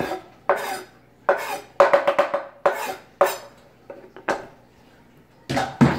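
Wooden cutting board knocking and scraping against the rim of a stainless slow cooker as chopped tomato is pushed off it into the pot. The sound is a quick run of sharp clacks and knocks, with one more knock about four seconds in.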